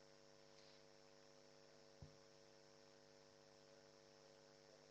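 Near silence apart from a steady electrical hum, with one faint click about two seconds in.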